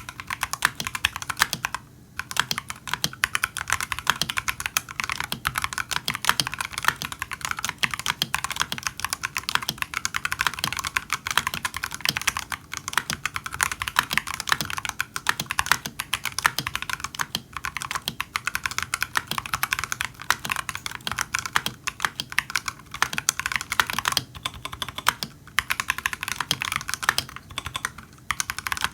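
Continuous fast typing on a Royal Kludge RK96 tray-mounted mechanical keyboard with unlubed Akko Jelly Purple switches, unlubed TX stem stabilizers, Akko ASA PBT keycaps, case foam and a Poron switch pad: a dense stream of quick keystroke clacks, with short pauses about two seconds in and near the end.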